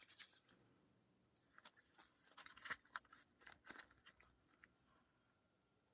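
Near silence with faint, scattered clicks and crinkles of small items being handled, busiest in the middle and fading out near the end.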